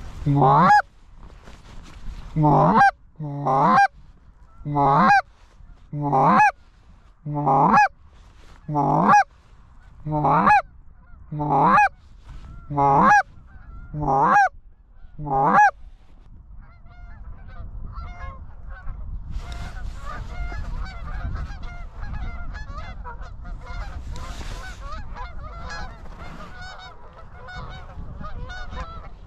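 A goose call blown in a steady series of about a dozen loud honks, roughly one a second, each a low grunt breaking up into a higher note. About 16 seconds in the calling stops and a flock of geese is heard honking at a distance, many voices overlapping.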